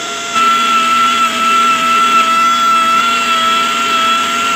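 Jeweller's flex-shaft rotary tool with a small cutting disc running with a steady high whine while cutting a gold chain. It gets louder about half a second in.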